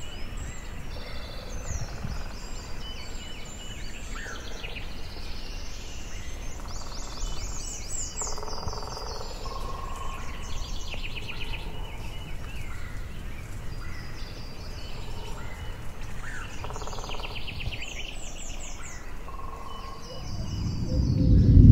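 Several songbirds singing in repeated chirps and trills, over a steady low background rumble. A louder low rumble swells near the end.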